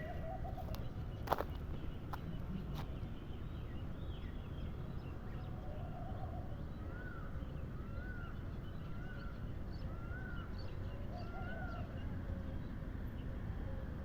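Birds calling outdoors over a steady low background rumble: a series of five short rising-and-falling notes about once a second in the second half, with a few lower calls between. A sharp click a little over a second in.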